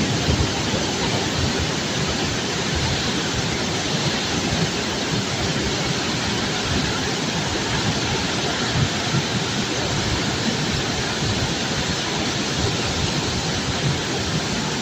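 Steady rushing noise of bulk cargo pouring out during a barge unloading, with a dense low rumble and no separate impacts standing out.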